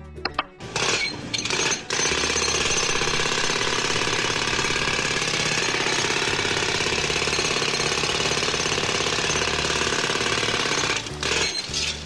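Small electric motor of a miniature model water pump running with a fast, loud buzzing rattle, starting a second or two in and stopping near the end, as it pumps water into the toy tanker. Background music plays underneath.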